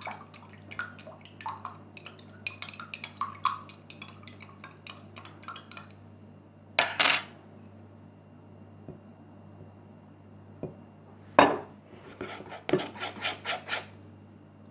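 A utensil stirring glue slime in a bowl, clicking and scraping against the bowl in quick strokes as borax activator is mixed in, with a pause of a few seconds midway and two louder knocks, about seven and eleven seconds in.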